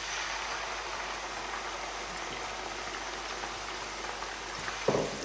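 Chopped onion and garlic-ginger paste sizzling steadily in hot vegetable oil in a frying pan, with one short knock near the end.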